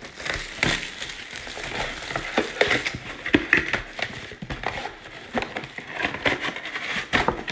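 A cardboard Panini Prizm retail trading-card box being handled and opened by hand: irregular crinkling and scraping of the cardboard, with many small sharp clicks and knocks as the flaps are worked open.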